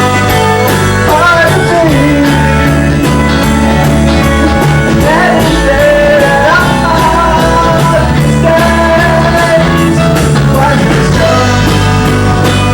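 Rock band playing live: guitar, bass and a steady drumbeat, with a singer's voice over them.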